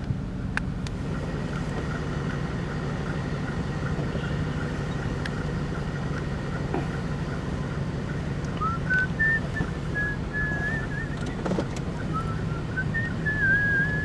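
Car engine running steadily, heard from inside the cabin. About halfway through, someone whistles a few wavering notes in two short phrases.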